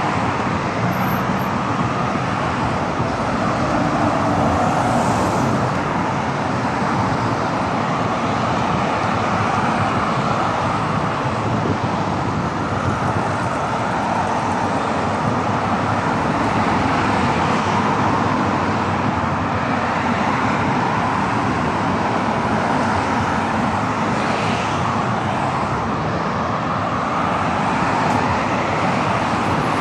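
Continuous road traffic on a busy city boulevard: cars passing steadily, swelling and easing now and then, with no single vehicle standing out.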